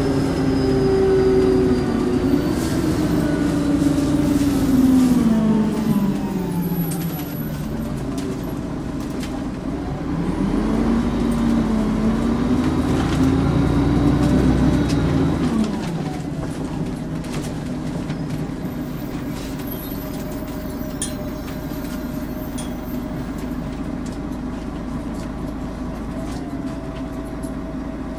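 Volvo Olympian double-decker bus engine running with its turbo whistle. The pitch falls over the first seven seconds, rises again about ten seconds in and falls away by about sixteen seconds. After that a steadier, lower drone carries on.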